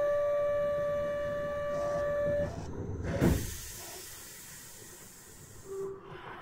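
Kyoto subway 20 series door-closing buzzer sounding a steady tone, which stops about two and a half seconds in; the doors then shut with a thud, followed by a few seconds of hiss.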